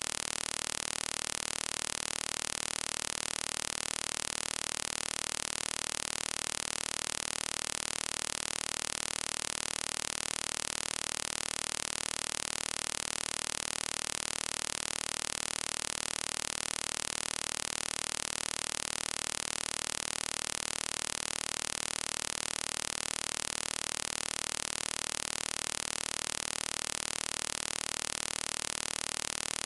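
Steady static hiss, even and unchanging, with no other sound in it.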